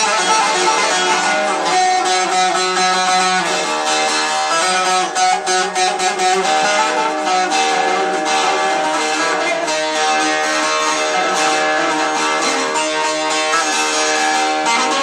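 Electric bağlama (long-necked saz) played through a distortion pedal and amplifier: a bozlak melody of held, overdriven notes with fast plectrum tremolo. About five seconds in comes a quick run of short, sharply picked notes.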